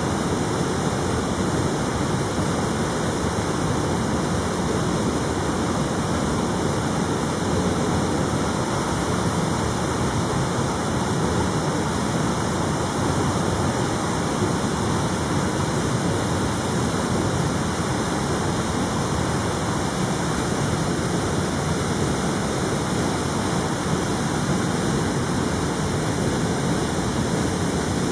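A steady, even rushing noise that does not change, with no distinct calls or knocks.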